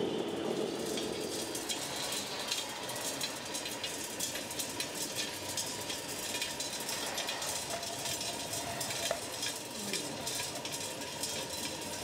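Radio-controlled model construction machines working in gravel: a steady gritty crackle and crunch of stones and running gear, with a faint steady whine from a small electric motor.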